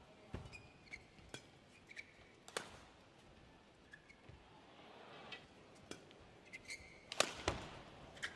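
Badminton rally: irregular sharp racket strikes on the shuttlecock, the loudest a little before the end, with brief shoe squeaks on the court floor between hits.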